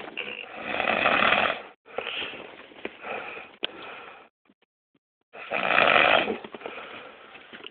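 A person snoring, recorded up close: two loud snores about five seconds apart, each trailing off into a quieter breath.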